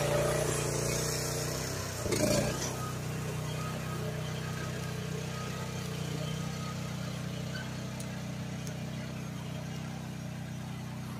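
Groundhog KH14G mini excavator's engine running steadily as the machine tracks along, towing a four-wheel dump trailer. A brief louder burst comes about two seconds in, after which the sound grows gradually fainter as it moves away.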